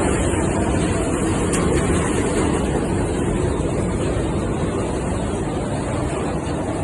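Petkus K-527 seed-cleaning machine running steadily after a major overhaul, a continuous even mechanical noise.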